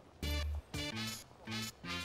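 Background music that starts suddenly just after the start, with a bass line of short notes stepping in pitch.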